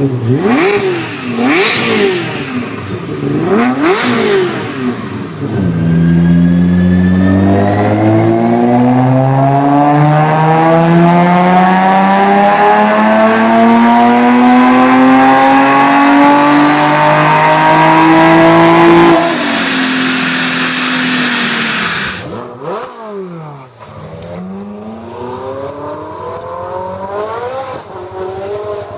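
Maserati Quattroporte V8 exhaust: a few quick throttle blips rising and falling, then one long full-throttle pull with the engine note climbing steadily for about thirteen seconds. It cuts to a lower steady note and more revving near the end.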